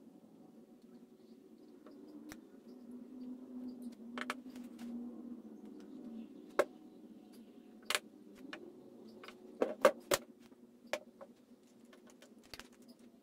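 Metal tweezers clicking and scraping against the plastic cap and cylinder of a Porter-Cable DA250B finish nailer as fragments of the broken collar are picked out. There are scattered sharp ticks and taps, a small cluster of them about ten seconds in, over a faint steady hum.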